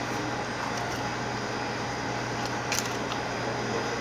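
Steady mechanical hum of a running appliance filling a small tiled room, with a brief sharp click a little over halfway through.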